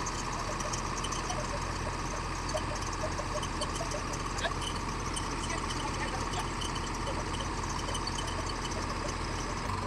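Pettibone telehandler's diesel engine running steadily, a constant low hum, with rain hiss and water dripping and trickling off the machine in small scattered ticks.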